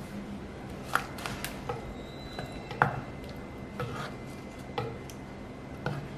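Wooden spoon stirring a thick curd-and-mango curry in a clay pot, knocking against the pot's sides in about ten short, sharp taps at uneven intervals; the loudest come about one second in and near the middle.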